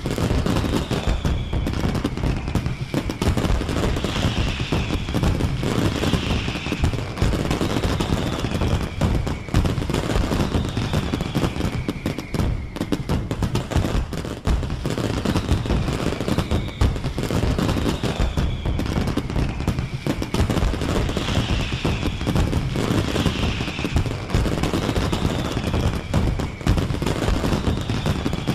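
Fireworks going off in a dense, continuous barrage of bangs and crackles. Falling whistles recur about every two seconds.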